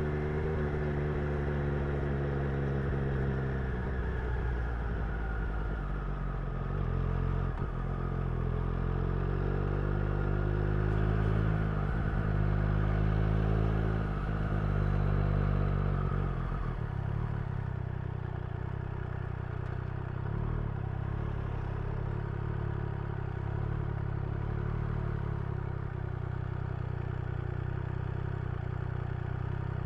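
Triumph Street Triple's inline three-cylinder engine and exhaust, heard from the rider's seat. The engine note falls as the bike slows, then rises again through several quick gear changes, and after about 17 seconds it settles into a steady low run.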